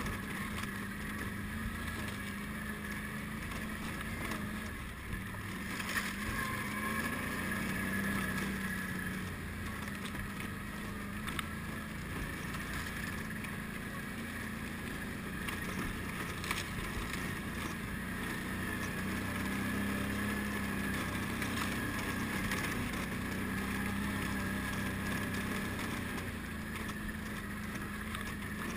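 ATV engine running steadily as the quad rides up a snowy trail, its pitch rising and falling a little with the throttle, with a few sharp knocks along the way.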